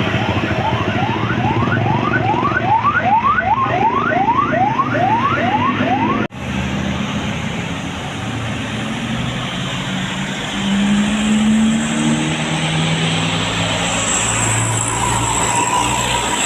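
A tour bus's custom telolet horn sounds a fast run of rising chirps, about three a second, over the running engine. About six seconds in, the sound cuts abruptly to a bus engine running with a low drone.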